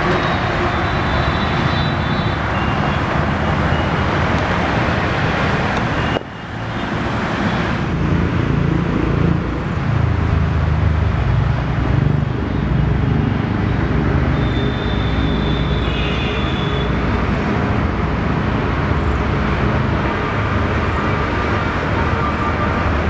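Steady road traffic noise of passing vehicles, briefly dropping away about six seconds in, with a heavier low rumble after that and a few short high tones.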